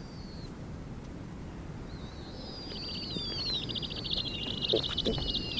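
Snowy owl owlets giving thin, high begging calls: a few short falling whistles, then from about two seconds in a fast rasping chatter with overlapping falling whistles that grows slightly louder.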